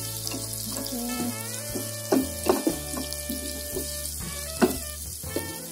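Sliced carrots sizzling in hot oil with garlic, shallots and chilli as they are stir-fried, with a few sharp knocks of the spatula against the pan, about two, two and a half and four and a half seconds in.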